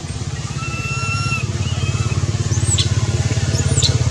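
Low engine hum with a fast, even pulse, growing louder. A few short high-pitched calls sound over it: a held note about a second in and two quick falling calls near the end.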